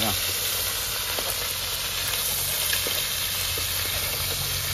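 Food sizzling as it fries in a pot, with a few light clicks of stirring.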